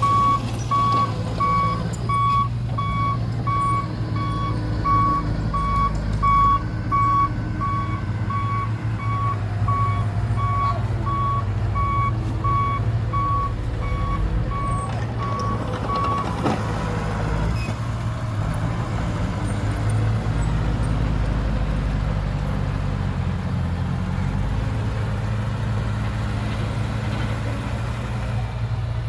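A vehicle reversing alarm beeping evenly and steadily, stopping about halfway through, over the steady running of heavy diesel engines from the earthmoving machines.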